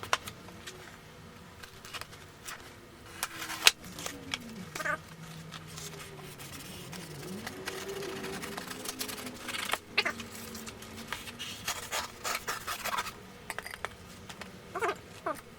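A cardboard package being torn open and handled: irregular crackles, rips and rustles of cardboard and packing tape. A faint, slowly wavering low tone rises and falls behind it in the middle.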